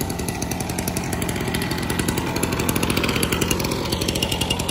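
Small two-stroke engine running steadily with a rapid buzz, growing a little louder toward the middle.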